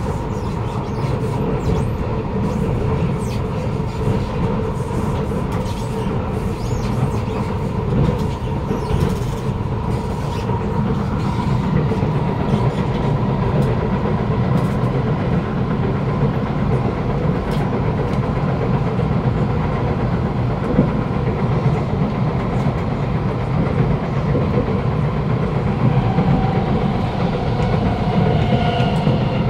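Kawasaki Nippon Sharyo C751B metro car running between stations, heard from inside the carriage: a steady motor hum over the rumble and clatter of the wheels on the rails, with new motor tones coming in near the end. The uploader puts the car's wheel noise down to flat wheels.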